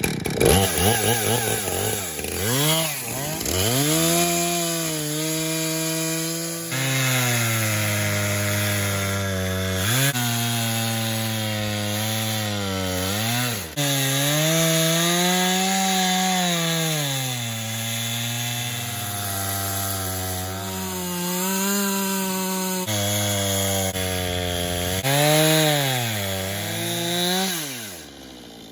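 Husqvarna two-stroke chainsaw with a ripping chain, cutting lengthwise through an aspen log in an Alaskan chainsaw mill. The engine runs at high revs, its pitch sagging and recovering several times as the chain loads up in the wood, then it winds down near the end.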